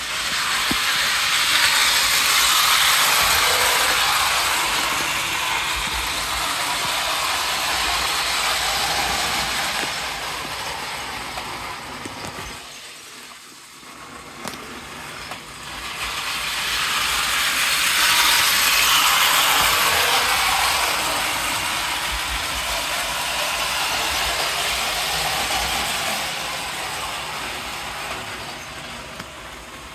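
Electric model train running on its metal track: a gear and wheel whir with hiss that grows louder and fades twice as it comes round, dropping away briefly about halfway through.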